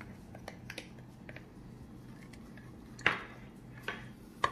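Black plastic spoon knocking and scraping against a stainless steel pot while custard powder is mixed into water: scattered light clicks, with two louder knocks about three seconds in and near the end. A low steady hum runs underneath.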